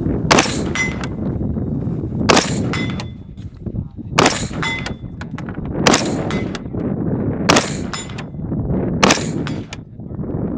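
AR-15 rifle firing six single shots, one every one and a half to two seconds. Each shot is followed under half a second later by the fainter clang of a steel plate target being hit downrange, ringing briefly.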